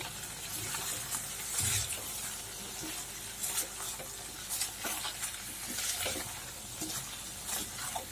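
Fried pointed gourds and green chillies being stirred into a sizzling spice masala in a pan, with the spatula scraping and knocking against the pan now and then.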